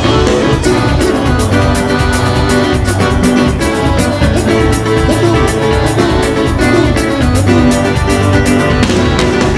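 Live band music with a steady drum-kit beat, bass and bright melodic instruments, with no singing.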